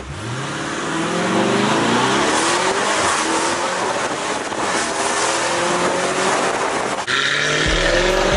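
Lamborghini Urus twin-turbo V8 through a straight-piped valvetronic catback with catless downpipes, accelerating hard through the gears: its pitch climbs, drops at each upshift and climbs again. About seven seconds in, the sound changes abruptly to the car launching hard.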